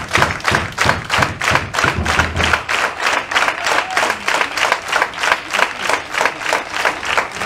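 Arena crowd clapping in unison in a steady rhythm, about four claps a second. Low thuds sound under the clapping for the first two and a half seconds.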